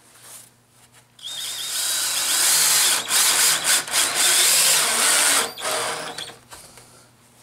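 Cordless drill boring into the wooden nose of a sleigh runner, starting about a second in with a rising whine. It runs hard for about four seconds with a few brief stops of the trigger, then cuts off.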